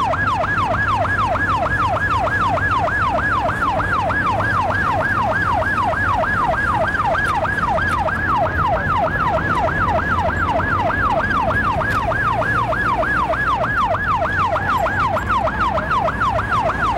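Police patrol car's siren in yelp mode, a fast up-and-down wail at about three to four sweeps a second, heard from inside the car during a pursuit, with the car's engine and road noise as a steady rumble underneath.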